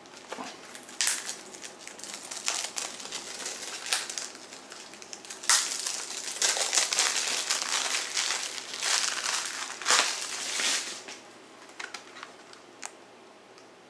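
Crinkling plastic wrapping being handled and pulled off a CD, in irregular bursts that stop a few seconds before the end.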